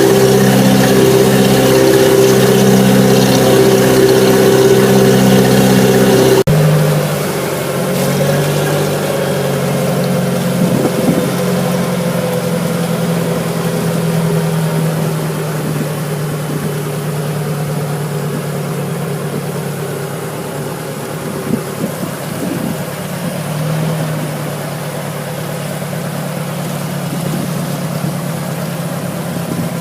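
Boat engine running steadily under way; about six seconds in the note changes abruptly to a quieter, lower engine sound that then runs on evenly.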